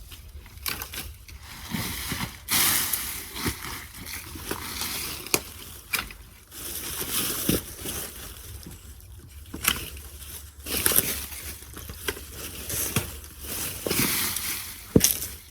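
Leafy Pittosporum branches rustling and swishing as the shrub is cut back and pulled away, with scattered sharp snaps and clicks of stems being cut.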